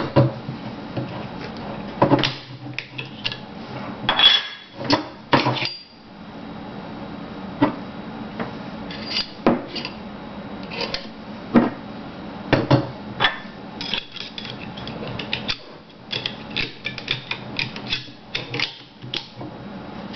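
Metal parts of a vz. 52/57 rifle being handled during field stripping: irregular clicks, clacks and knocks of steel parts against each other and the work surface, some in quick runs.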